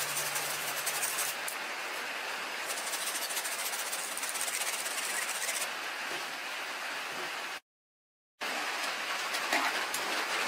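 Pot of chicken and vegetable soup at a rolling boil, bubbling with a steady hiss. The sound drops out completely for a moment about three-quarters of the way through.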